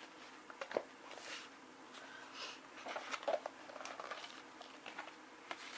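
Soft, scattered clicks, taps and rustles of close-up handling as a metal coin is picked up and moved about.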